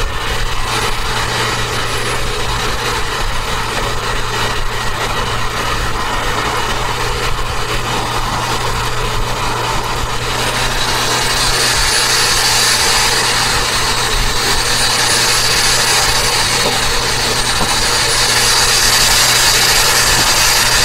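Turbocharged Toyota Avanza driving at speed: a steady engine hum over road noise. About halfway in it grows a little louder and a high whine comes in that wavers up and down in pitch.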